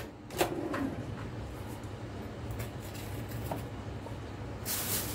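A few light knocks over a steady low kitchen hum, then a hissing rustle begins near the end.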